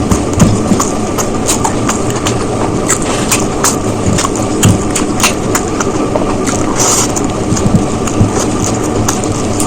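Close-miked chewing and mouth sounds of someone eating biryani: a dense run of short wet clicks and smacks over a steady background noise.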